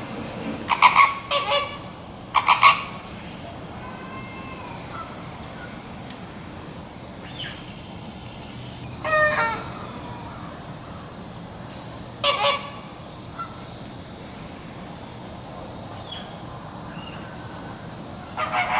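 A flock of American flamingos honking in short goose-like bursts during a group display, with gaps of several seconds between calls. One longer stuttering run of calls comes near the middle.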